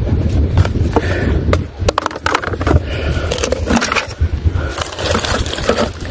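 Wind rumbling on the microphone, with scraping and repeated knocks of handling noise as the phone is moved about close to the railing.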